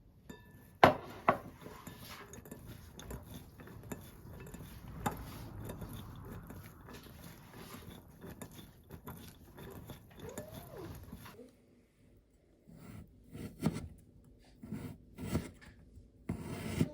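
Kitchen utensils and dishes clinking and scraping during food preparation, with a few sharp knocks; the clatter thins out to occasional taps about two-thirds of the way through.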